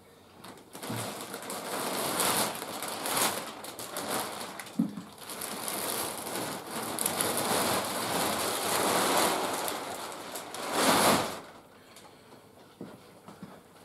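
Large clear plastic packing bag crinkling and rustling as it is pulled off a printer and bunched up, loudest just before it stops near the end.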